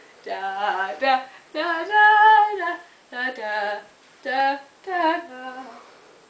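A female voice singing a slow tune without clear words: five phrases of held notes with short breaks between them.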